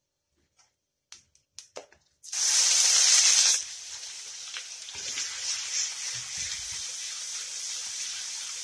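Onion dropped into hot oil with fried cumin in a steel kadai: after a few faint clicks, a loud burst of sizzling about two seconds in, which settles after a second or so into a steady, quieter sizzle as it is stirred.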